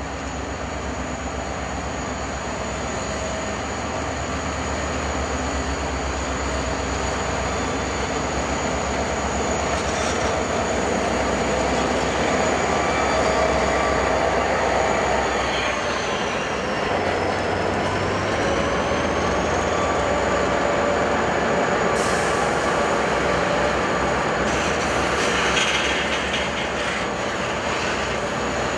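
A slow Canadian Pacific freight train passing close by. The diesel locomotives rumble louder to a peak about halfway through, with a thin high whine that dips in pitch as they go by. Covered hopper cars then roll past with wheel clatter and squeal.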